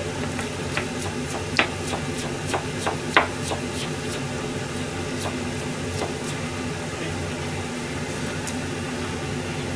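Kitchen knife slicing on a plastic cutting board: a quick, uneven series of sharp taps, a few louder than the rest, thinning out after about six seconds, over a steady low background hum.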